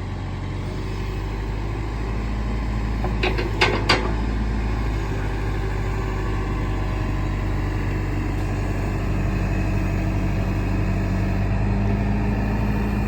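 Case 580 Super M backhoe loader's 95 hp turbo diesel running steadily while the hoe is worked, with two short clanks about four seconds in. The engine note strengthens slightly near the end.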